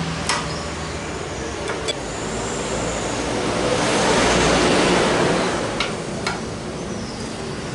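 A kitchen knife slicing a lontong rice cake, the blade knocking on the cutting board in a few sharp clicks, with a rushing noise that swells and fades in the middle.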